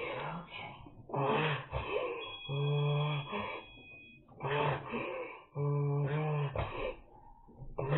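A man groaning with each laboured breath as he recovers from a tonic-clonic seizure: repeated moaning exhalations at a steady low pitch, about one a second.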